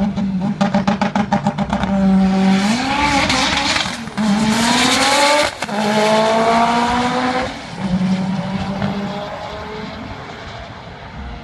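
Mitsubishi Lancer Evolution VIII's turbocharged four-cylinder on a drag-strip launch. It pops rapidly against its two-step launch limiter for about two seconds, then revs up through the gears, the pitch climbing and dropping at each upshift (about four, five and a half and seven and a half seconds in), and fades as the car runs away down the strip.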